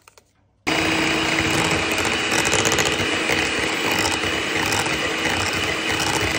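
Electric mixer switched on about a second in and running steadily with a constant hum, whipping a sour-cream and kefir cream.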